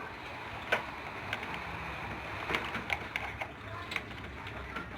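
Scattered light clicks and taps of small hard objects over a steady background hum.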